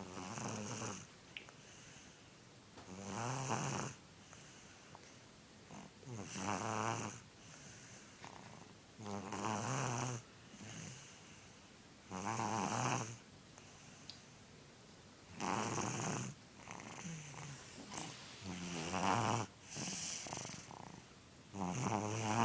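A baby snoring loudly in sleep: a rough, pitched snore about every three seconds, with softer breaths between.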